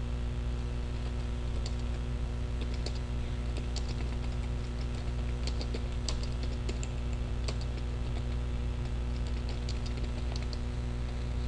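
Typing on a computer keyboard: irregular key clicks, several a second in spurts, over a steady low hum.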